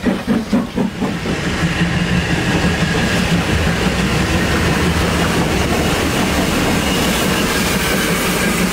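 Steam locomotive exhaust beats, about three a second, ending about a second in. They give way to the steady rumble and hiss of a steam locomotive and coach rolling past, with wheel noise on the rails.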